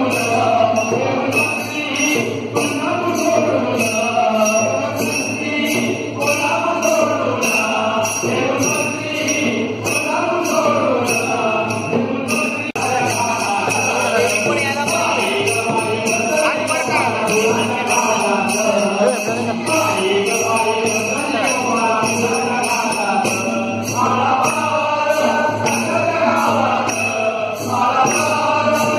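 Hindu devotional music: a wavering melody over a steady jingling beat, about two strikes a second, growing denser about halfway through.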